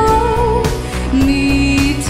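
Upbeat pop music: a singing voice holds long notes over a steady drum beat and bass.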